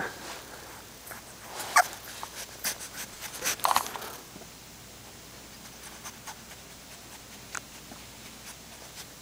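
English bulldog puppy nosing and mouthing at the camera up close: scattered clicks and rubbing, with a couple of brief squeaky sounds in the first half, then lighter clicks.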